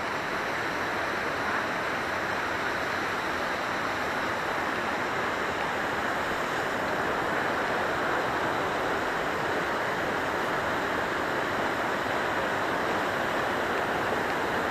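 Rushing water of a mountain stream: a steady rush that grows slowly louder.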